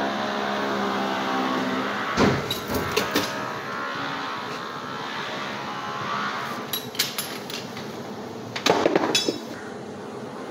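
Metal clinks and knocks from parts of a steering rack being worked on in a vice as a small round part is pulled from its housing, loudest in a quick cluster near the end. Under them a steady machine hum fades out after about six seconds.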